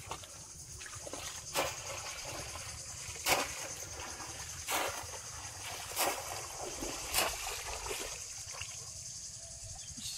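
Bamboo polo fish trap plunged again and again into shallow muddy pond water: a splash about every second and a half, with water sloshing around the wading legs in between.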